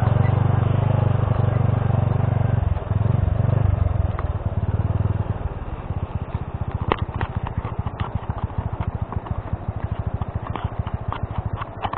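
Honda C70 moped's small single-cylinder four-stroke engine pulling at low speed, then dropping to a quieter, pulsing idle about five seconds in. A sharp click comes a little later.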